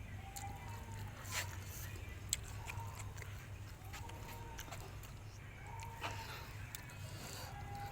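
A person eating: chewing with small sharp clicks and crunches. Several faint short animal calls come about once every second or so, over a low steady hum.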